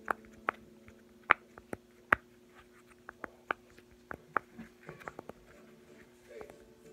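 Silicone pop-it fidget toy, a rainbow circle one, having its bubbles pressed one after another on its bad side. This gives short, sharp pops at an uneven pace, about three a second.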